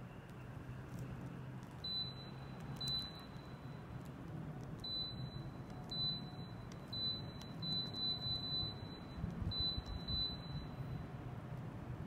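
Daikin FTNE35JEV14 mini-split indoor unit (a Gree-built model) giving about ten short, high beeps as it receives button presses from the remote: single beeps at first, then several in quick succession. A steady low hum runs underneath.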